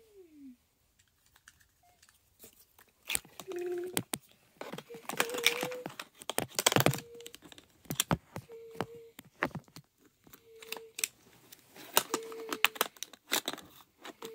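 Plastic toy garbage truck handled up close: clicks, knocks and rattles of its plastic parts, with crinkling of foil and plastic scraps in its hopper. From about five seconds in, a short steady beep repeats about every one and a half to two seconds.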